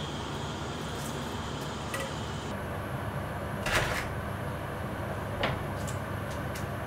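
A pot of beef tendon at a boil, bubbling steadily for the first couple of seconds. Then a kitchen knife knocks twice on a plastic cutting board while green onion tops are cut, once sharply and once more softly.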